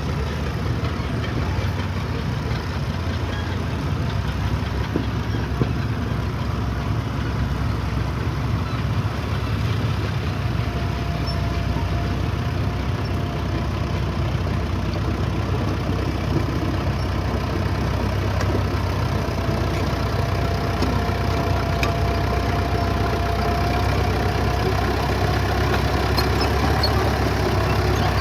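Engine of an antique bulldozer running steadily as it moves along, growing slightly louder toward the end, with a faint steady whine joining about ten seconds in.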